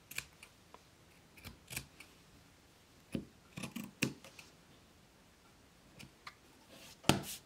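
Fabric scissors snipping through the flannel seam allowance, trimming it down: short crisp cuts at irregular intervals, the loudest near the end.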